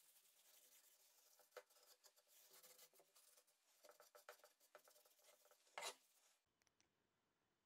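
Faint rubbing of a cloth wiping a wet finish onto a pear-wood board, in short scratchy strokes, with one sharper knock just before six seconds in.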